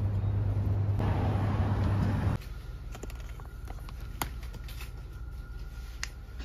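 Shop ambience: a steady low hum with a noisy rush that cuts off abruptly about two seconds in, leaving quieter room tone with a faint high steady tone and a few light clicks.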